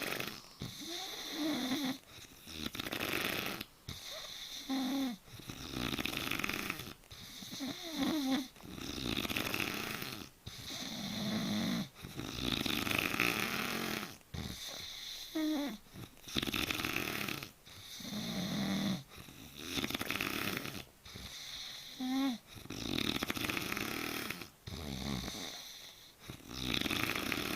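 Snoring during sleep: steady rhythmic breaths in and out, with a new breath sound about every two seconds.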